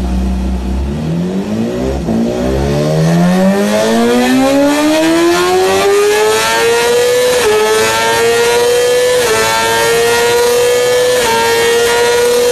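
BMW S1000RR's inline-four engine under full-throttle acceleration from near standstill to about 325 km/h. The engine note climbs steadily in pitch, with brief dips at each quick upshift, about every two seconds in the second half.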